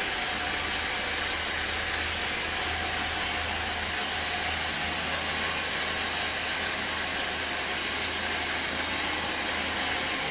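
Homemade band sawmill running steadily, its blade ripping lengthwise through a teak beam: an even sawing hiss over a steady low motor hum.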